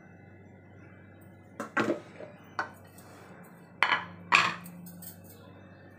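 Kitchenware set down on a stone countertop: a wooden rolling board and bowls knock and clatter as they are put in place. There are a couple of knocks about two seconds in, and the loudest pair comes about four seconds in.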